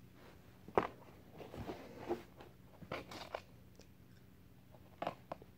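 A few faint, scattered crinkles and small clicks of candy being handled in and taken out of a cardboard shoebox.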